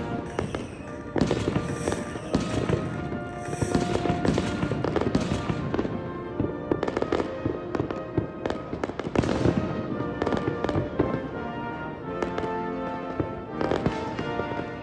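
Fireworks display: aerial shells bursting and crackling in quick succession, densest through the middle and easing off near the end.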